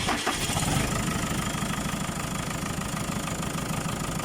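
JCB backhoe's diesel engine idling steadily, having just been started.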